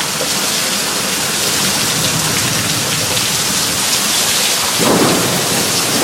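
Heavy rain pouring down steadily in a thunderstorm downpour, with a brief louder low rumble about five seconds in.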